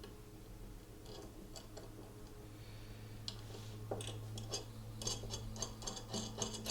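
Small metal clicks and taps of a washer set onto a bolt and a 1/4-inch nut being threaded down by hand, sparse at first and busier over the last few seconds, over a low steady hum.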